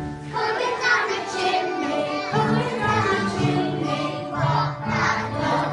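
A group of young children singing a song together, with instrumental accompaniment underneath.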